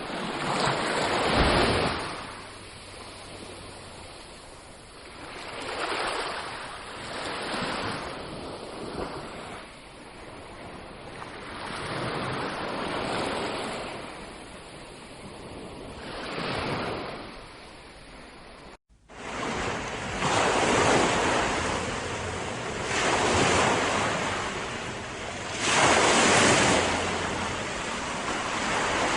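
Ocean waves breaking on a beach, each surge swelling and washing back every few seconds. About two-thirds of the way through there is a sudden cut to another stretch of surf, fuller and louder.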